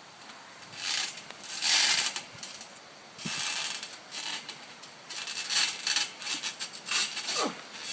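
Trampoline springs and mat creaking and rattling in uneven stretches as wrestlers shift and bounce on it.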